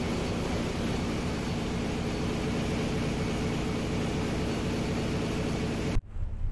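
Steady drone of shipboard machinery: a dense rushing noise over a low hum, which cuts off suddenly near the end.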